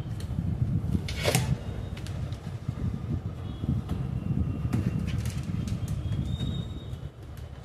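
Steady low rumbling background noise with scattered clicks, a sharp noise about a second in and a few faint short high chirps.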